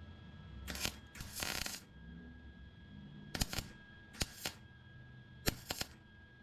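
Wire-feed (MIG) welder laying tack welds on a car's sheet-steel firewall: five short spells of arc, each under a second, the second one the longest at about half a second.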